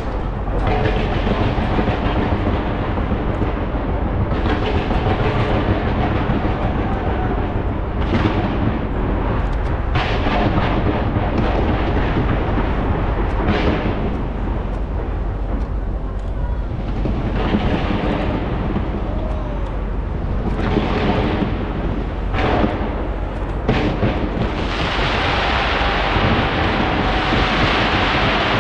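Skyscraper New Year fireworks display going off without pause: a continuous low rumble of bursting shells with sharper bangs every few seconds. Near the end it turns to a dense crackle of sparkling shells.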